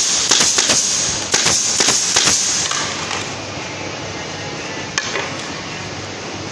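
Pneumatic nail gun firing a quick run of shots over about two and a half seconds, each with a sharp crack and a hiss of air, then one more shot about five seconds in.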